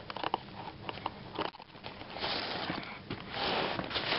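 Rummaging in a soft fabric tackle bag: light clicks and rustles of gear being handled, with two short breathy rushes of noise in the second half.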